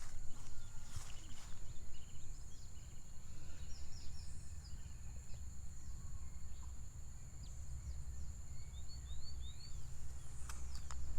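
Birds chirping in short, quick rising notes over a steady, high-pitched insect drone, with a constant low rumble underneath and a few sharp clicks near the start and end.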